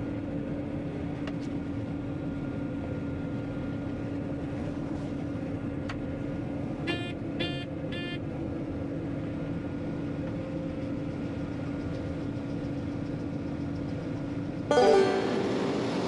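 Steady drone of a running farm machine heard from inside its cab, with a held hum. Three short electronic beeps come about halfway through. Banjo music comes in near the end.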